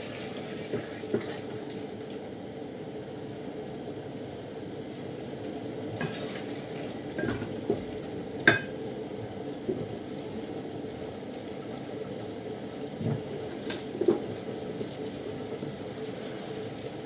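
Occasional clinks and knocks of metal pots and utensils, the sharpest about eight seconds in, over a steady low hiss of food cooking on the stove.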